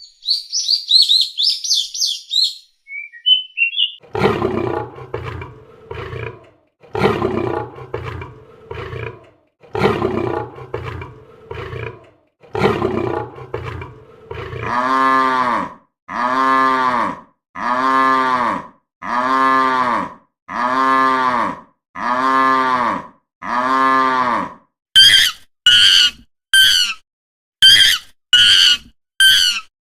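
A run of recorded animal calls, one kind after another: a short high bird chirp, then a series of low, rough roars, then seven evenly spaced drawn-out calls of about a second each, and near the end quick, loud, high-pitched calls in rapid clusters.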